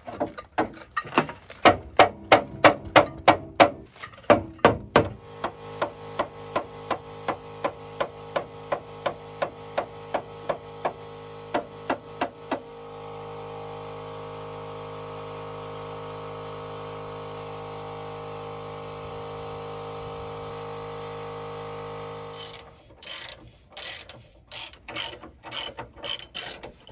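Hand ratchet clicking in quick, even strokes as the bolts of the lower control arm bushings are run in, loud at first, then lighter. A steady hum takes over for about ten seconds in the middle, and the ratchet clicks again near the end.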